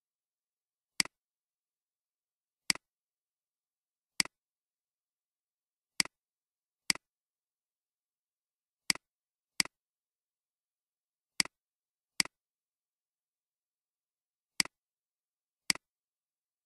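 Computer mouse clicking: eleven short, sharp clicks at uneven intervals, several of them in quick pairs.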